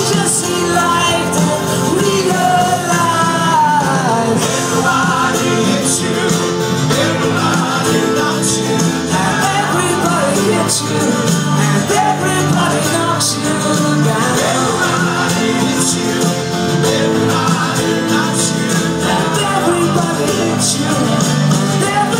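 Live rock band playing, with acoustic and electric guitars, heard through a phone's microphone from the audience.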